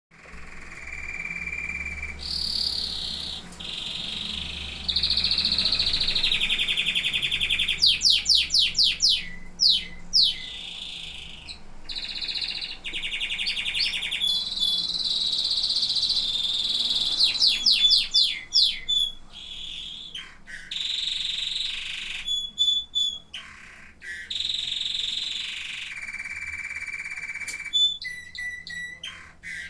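Domestic canary song: long runs of fast rolled trills and repeated sweeping notes, switching to a new trill every second or two.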